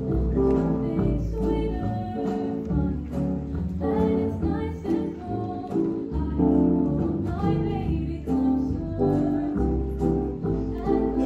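Female vocals singing a song through hand-held microphones over an instrumental accompaniment with a bass line.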